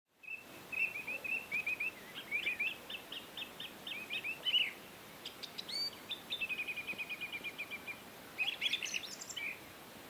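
Songbirds chirping and twittering: runs of short, high chirps and whistles, with a fast, evenly repeated trill about halfway through, over a faint hiss.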